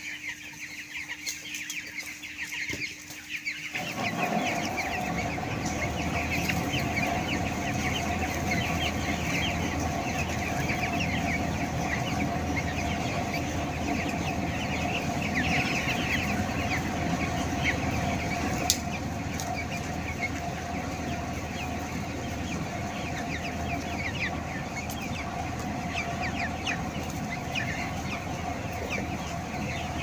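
A large flock of young broiler chickens cheeping and clucking without pause, many short high calls overlapping, over a steady hum that comes in about four seconds in.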